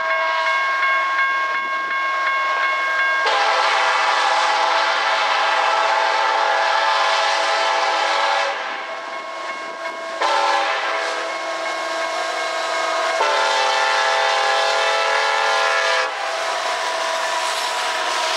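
The lead locomotive's air horn of an approaching loaded coal train, sounding a chord of several notes in a series of long blasts. The horn stops about 16 seconds in, and the locomotives' engines and wheels rush past loudly.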